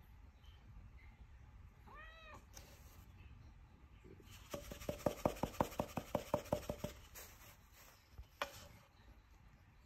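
Silver Siberian Forest kitten giving one short meow that rises and falls in pitch about two seconds in. A couple of seconds later comes a louder run of rapid clicking pulses, about five a second with a steady tone beneath them, lasting about two and a half seconds, then a single click.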